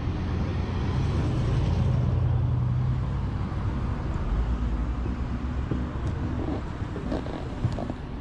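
Road traffic: a motor vehicle's engine running close by over steady road noise, loudest about one to three seconds in, then easing off.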